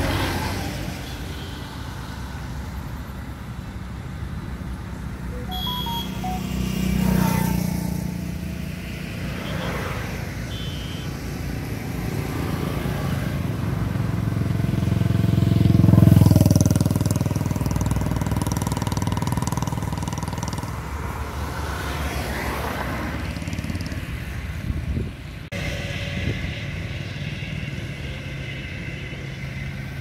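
Heavy diesel engines of earthmoving machinery running with a steady low drone, while vehicles swell past and fade twice, the louder one about halfway through. The sound changes abruptly a few seconds before the end.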